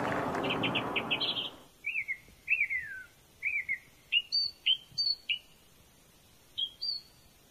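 A songbird chirping outdoors: a quick run of high chirps, then a series of short down-slurred whistled notes and clipped chirps in phrases about half a second to a second apart. For the first second and a half a rush of noise plays under it and cuts off abruptly.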